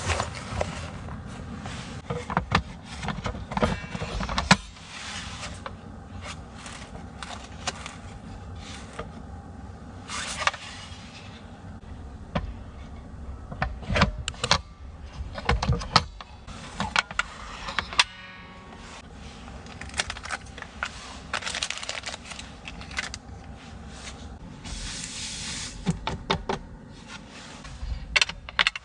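Handling noises: irregular clicks, knocks and rustling over a steady low background, with a brief fast run of ticks partway through.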